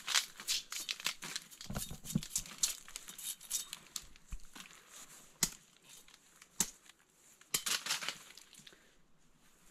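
Rattan stems and dry leaves crackling and rustling as the spiny shoots are cut and their outer sheaths stripped away, with scattered sharp snaps.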